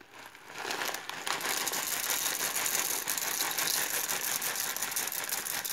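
Small dry pasta shaken out of a plastic bag into a Thermomix mixing bowl: a dense, rapid pattering of pieces, with the bag crinkling. It starts about half a second in and runs on steadily.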